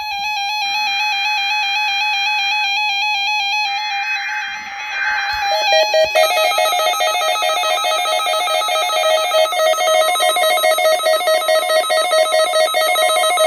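Electronic background music playing, overlaid in the first half by two screechy digital data bursts of about two seconds each, a second apart: the Emergency Alert System header tones that open a Required Weekly Test. From about six seconds in, the music changes to a rapidly pulsing tone pattern.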